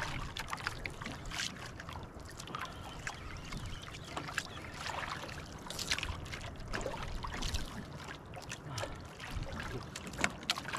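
Choppy sea water lapping and slapping against the hull of a small drifting outrigger boat, in irregular splashes.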